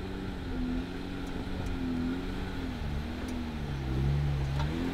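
Jeep Gladiator's engine running under load as it crawls over rock, its revs dipping about three and a half seconds in and rising again near the end, with a few faint ticks.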